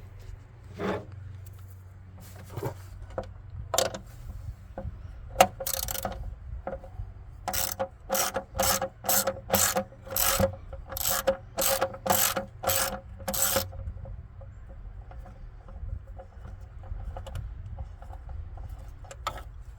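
3/8-inch-drive ratchet with an extension and 10 mm socket turning out a bolt: a run of about a dozen ratcheting swings, roughly two a second, in the middle, with scattered clicks before and softer handling noise after.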